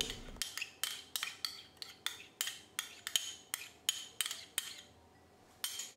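A spoon clinking against a small ceramic bowl in a run of light, irregular taps, about three a second, as fresh cream is scraped out onto shredded chicken.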